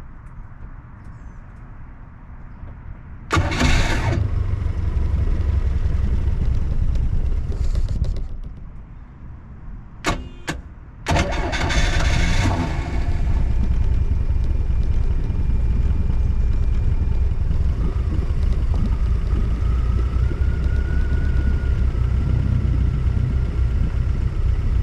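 Boat motor started: it catches about three seconds in and runs, dies down near eight seconds, then after a few sharp clicks it starts again and runs steadily.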